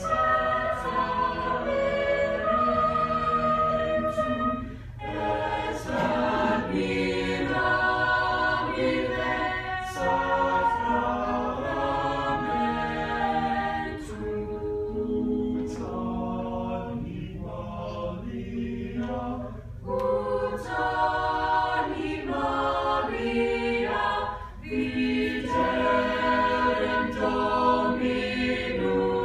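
High school choir singing, with short breaks between phrases about five seconds in and again near the end.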